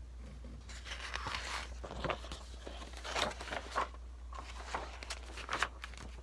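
Paper rustling and soft knocks as a hardcover picture book is handled, shut to show its cover and opened again, its pages turning, over a steady low hum.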